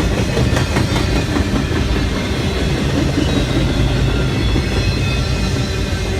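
Railroad cars of a long train rolling past close by: a loud, steady rumble with the wheels clicking over rail joints, most clearly in the first second and a half.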